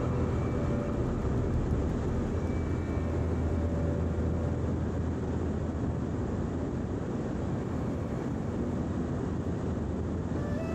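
Small helicopter in flight: a steady rush of rotor, engine and air noise.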